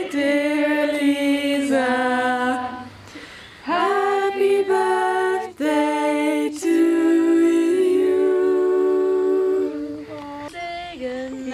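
Women singing a cappella, unaccompanied: a slow melody of long, held notes, with a short break about three seconds in.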